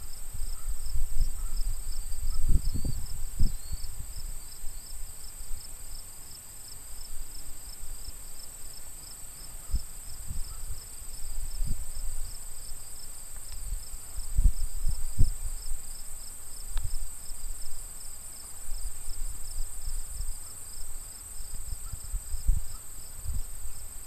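Insects trilling in steady chorus: a continuous high whine over an evenly pulsing chirp. Irregular low bumps and rumbles on the microphone come and go and are the loudest sound.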